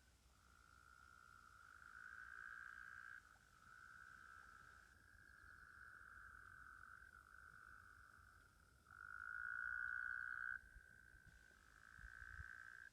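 A faint, continuous high-pitched trilling chorus of calling animals, frog-like, with several callers overlapping in stretches of a few seconds each; the loudest stretch comes about nine to ten and a half seconds in.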